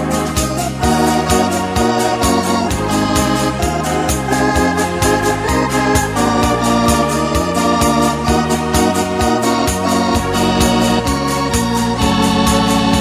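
Background music: an organ-led tune with a steady beat, a bass line stepping from note to note and sustained chords above.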